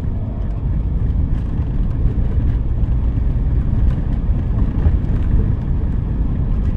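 Steady low rumble of road and engine noise inside the cabin of a Toyota Rush SUV with automatic transmission, driving along a street.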